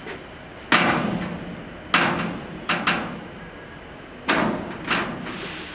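Hinged perforated steel inspection door on a carbonization reactor being shut and latched: six metallic bangs and clunks, two of them in quick pairs, each ringing on briefly.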